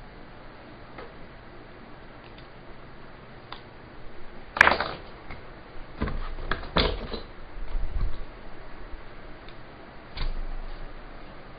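Hard doussie-wood blocks knocking and clacking as they are handled and set down on a wooden workbench. A few sharp knocks, the loudest about four and a half seconds in, with softer thuds and rubbing between them.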